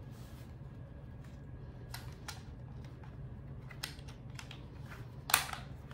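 Battery-compartment cover of a Dell KM7321W wireless keyboard being pressed back into place: a few faint clicks, then one sharp snap a little after five seconds as the cover latches shut.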